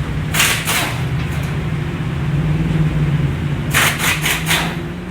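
A steady low hum with short bursts of hissing noise: one about half a second in, and four in quick succession around four seconds in.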